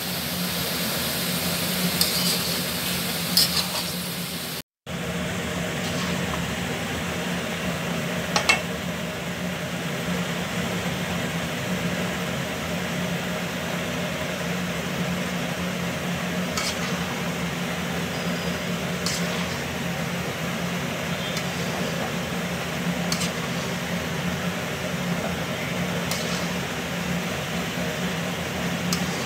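Metal spatula scraping and clinking against a metal pan now and then as stir-fried noodles are tossed, the loudest clink about eight seconds in, over a steady hum and hiss from the stove.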